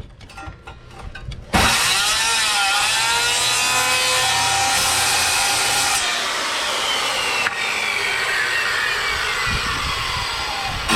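Power saw cutting through a bass boat's fiberglass-covered wooden floor. It starts about a second and a half in, and its whine dips and rises in pitch as the blade loads up in the cut.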